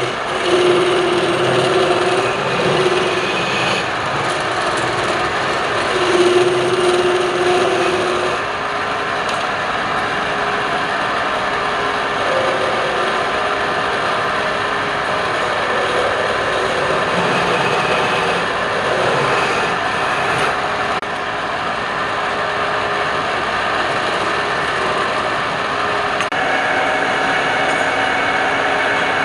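Wood lathe running steadily while a turning tool cuts the spinning wood, a continuous hum and scraping of the cut.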